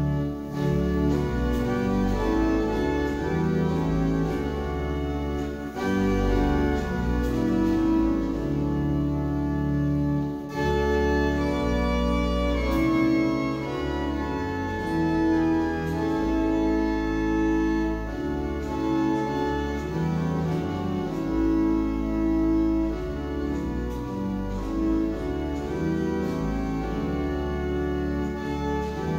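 Organ playing a hymn tune in slow, held chords over a sustained bass line.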